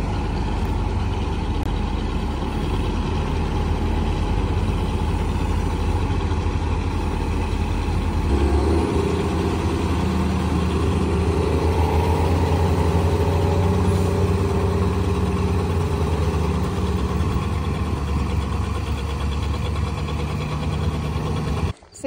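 Diesel engine of a large farm tractor running close by. A silage truck moves alongside it, and the engine note shifts about a third of the way in, staying louder and higher for several seconds before settling.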